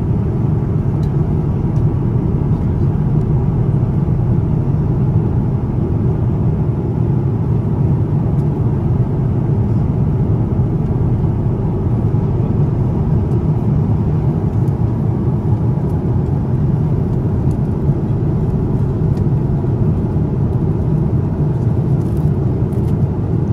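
Steady, low rumbling cabin noise of a Boeing 787-9 airliner in cruise: the constant rush of airflow and engine noise heard from an economy seat.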